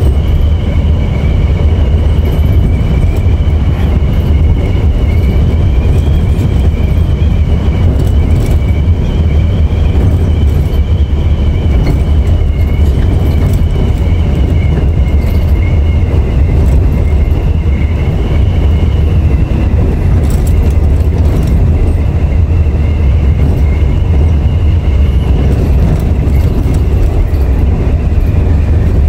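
Coach bus cruising on the highway, heard from the cab: steady engine and road rumble with a steady high whine over it.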